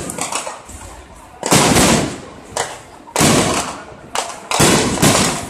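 Aerial fireworks shells bursting: about five sharp booms in quick succession, each trailing off in a rumbling, crackling tail.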